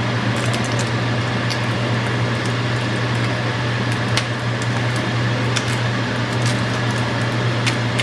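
Turkey bacon sizzling in a frying pan, an even hiss dotted with scattered sharp pops and crackles, over a steady low hum.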